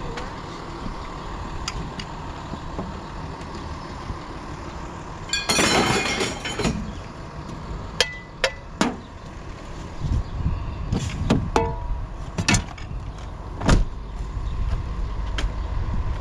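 A vehicle's engine idling steadily. About five seconds in comes a loud clattering burst lasting about a second, followed by a series of sharp knocks and clanks, the loudest near the end.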